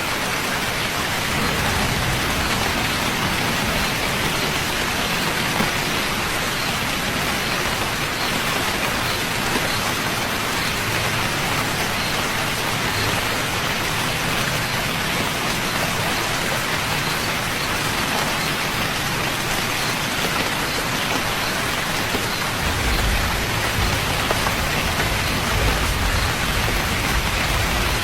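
Rain falling steadily, a dense, even hiss of drops. Near the end a low rumble joins underneath.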